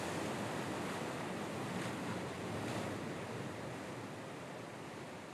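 Sea surf: an even wash of breaking waves with two faint swells, fading out gradually.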